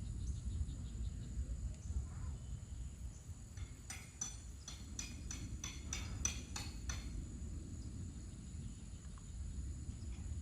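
Wind rumbling on the microphone outdoors, with a faint steady high insect drone behind it. From about four to seven seconds, a run of about ten sharp chirps, about three a second, cuts through.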